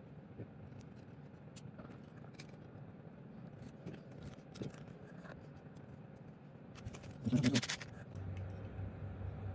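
Timing chain and small metal parts being handled on a Chinese 110cc engine's cylinder head: light scattered metallic clicks, with one brief louder rattling noise a little after seven seconds. A low steady hum starts about a second later.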